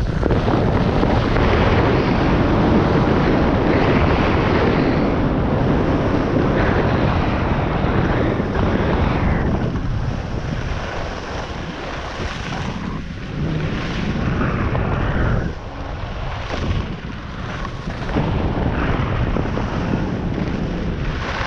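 Wind rushing over the microphone of a camera carried down a groomed ski run at speed, mixed with the hiss of edges sliding over the snow. It is steady and loud at first, then eases and surges in the middle with the turns before picking up again.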